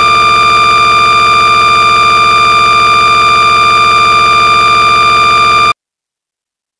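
Loud, steady buzzing tone from a crashed Windows Vista virtual machine in VirtualBox, its sound output stuck repeating a tiny fragment of audio after a BAD_POOL_CALLER blue-screen crash. It cuts off suddenly about a second before the end.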